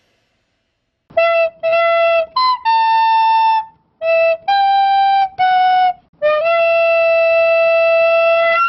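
A short tune on a flute-like wind instrument, starting about a second in: about eight single notes, a few sliding up into pitch, the last held for over two seconds.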